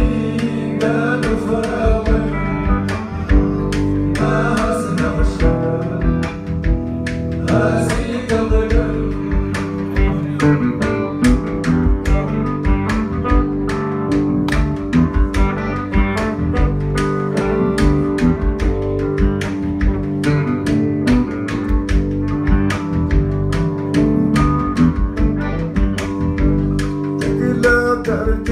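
Live Tuareg desert-blues band playing: guitars and electric bass over a steady hand-drum beat, with voices singing at times.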